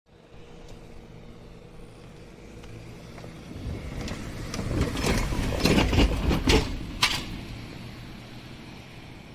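Electric train running past with a steady hum, growing louder, then a rapid run of clanks from the wheels over the rail joints about five to seven seconds in, before it fades back.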